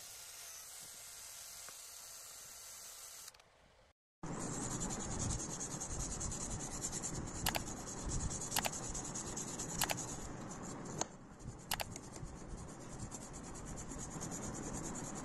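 A rotary tool's small spinning wheel grinding against a diecast metal car body, stopping abruptly about three seconds in. After a brief silence, a louder steady scratchy rubbing of abrasive on the metal body, with four sharp clicks between about seven and twelve seconds in.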